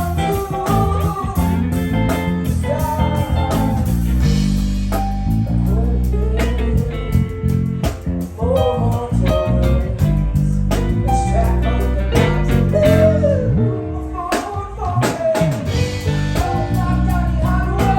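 Live band playing a bluesy tune: guitar over a steady bass and drum beat, with a bending melody line on top.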